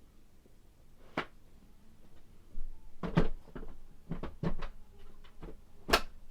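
A series of sharp knocks and clacks of hard objects being handled, coming singly and in quick clusters, the loudest near the end.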